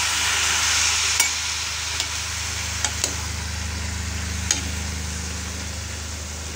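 Tamarind water poured into a hot steel kadai of frying spine gourd: a sizzling hiss that is loudest in the first second and dies down. A slotted steel spoon stirring the pieces makes a few sharp clicks against the pan.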